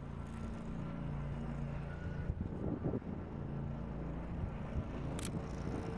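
An engine running steadily, a low even hum that holds its pitch. A single sharp click comes about five seconds in.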